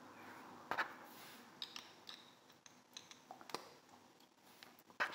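Faint handling noise: several scattered sharp clicks and taps from small objects being handled, the sharpest just under a second in and another near the end.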